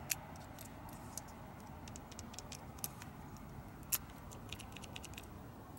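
Faint clicks and light jingling of a key and key ring as the key is worked in and out of a small lock cylinder, with a sharper click about four seconds in.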